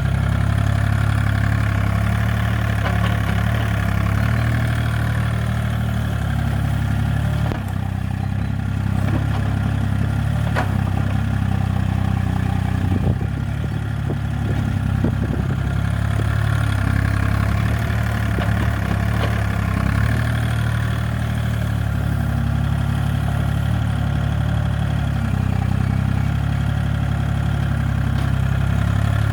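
Hitachi EX30 mini excavator's diesel engine running steadily while the machine works, with a couple of light knocks partway through.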